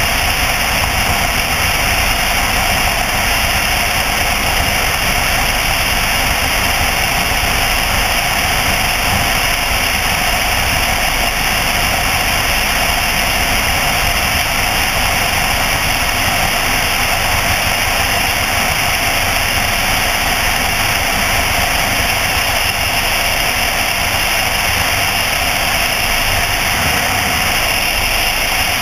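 Light single-engine piston aircraft's engine and propeller running at steady power, mixed with rushing airflow over the airframe, on a long final approach.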